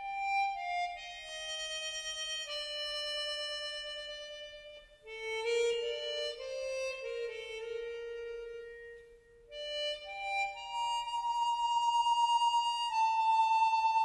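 Background music: a slow solo melody of long held notes on a wind instrument, at times sounding two notes together.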